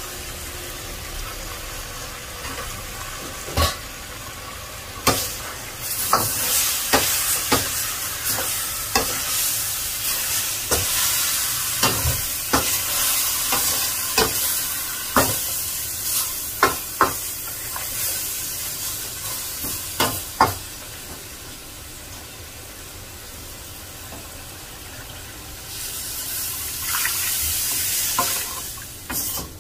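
Pork pieces sizzling as they sauté in a wok, with a stainless steel ladle stirring them and knocking against the pan many times over about fifteen seconds. The sizzle dies down after the stirring stops, then rises again near the end as the meat sits in its released juices.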